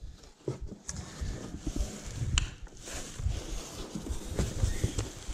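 Cardboard flaps and packing inserts of a bicycle shipping box rustling and scraping as they are pulled apart by hand, with scattered knocks and clicks.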